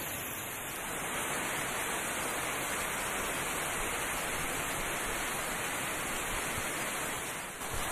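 Heavy rain pouring down, a steady even hiss, briefly dipping near the end.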